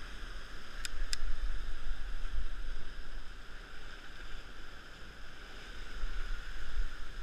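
Wind buffeting the microphone in gusts over the steady wash of surf breaking against sea rocks, with two brief clicks about a second in.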